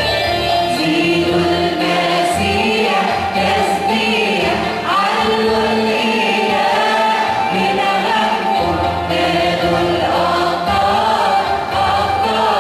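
A choir singing a Coptic Christian hymn in Arabic, many voices together over instrumental accompaniment.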